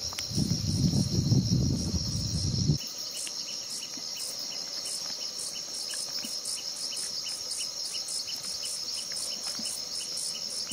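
Steady high-pitched insect chorus with a pulsing chirp of about three to four pulses a second over it. A low rumble runs under it for the first three seconds or so and cuts off suddenly.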